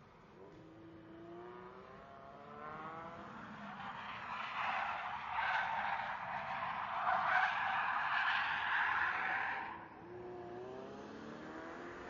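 A racing car's engine rises in pitch as it accelerates. Then its tyres squeal in a long skid of about six seconds, which is the loudest part and stops abruptly. After that the engine climbs in pitch again.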